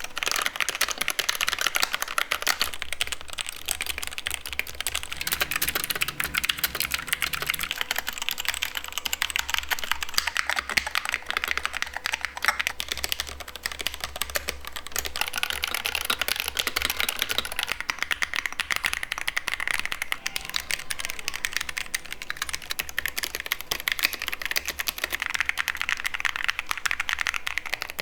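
Fast, continuous typing on computer keyboards, a dense clatter of keystrokes. The character of the clatter shifts a few times as different keyboards are typed on.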